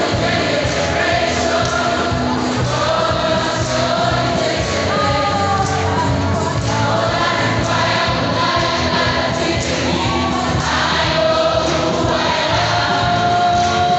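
Many voices singing a lively worship song together, congregation and choir, over a regular beat.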